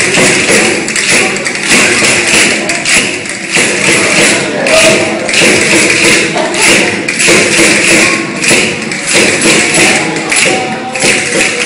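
Group singing of a Christmas carol (villancico) by children and adults, carried by a loud, steady beat of handheld percussion.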